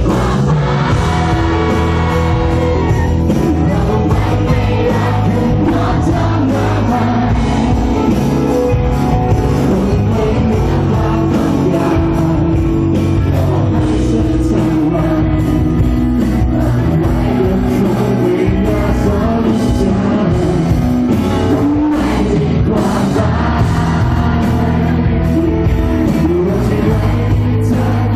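Live rock band playing loud and without a break: male lead vocals over electric guitar, bass and drums.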